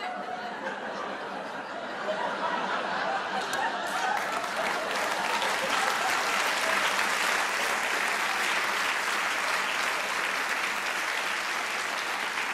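Audience laughing and applauding, the clapping swelling to a steady ovation about four seconds in and easing off a little near the end.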